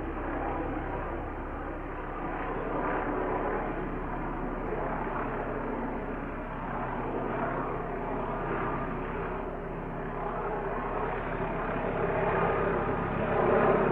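Helicopter hovering: a steady rotor and engine drone that swells and fades slowly every few seconds, growing louder near the end.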